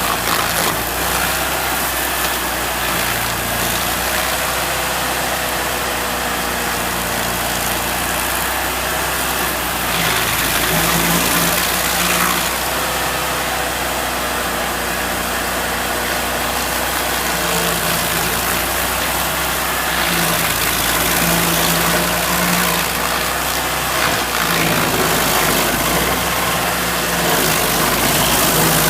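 Rayco 1625 Super Jr stump grinder running steadily at working speed as its cutter wheel grinds down a tree stump, the sound swelling a little now and then as the wheel bites into the wood.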